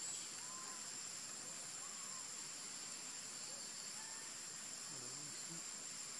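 Steady high-pitched drone of insects, with a few faint short chirps about half a second, two and four seconds in.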